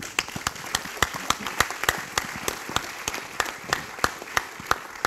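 Audience applauding: many hands clapping in a dense steady patter, with a few sharper single claps standing out.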